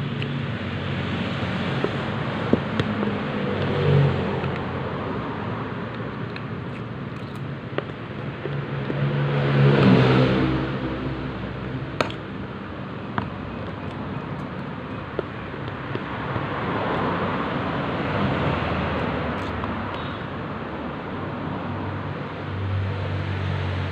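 Road traffic going by: a steady traffic hum with motor vehicles passing, the loudest about ten seconds in, its engine sound swelling and fading. A few sharp clicks sound over it.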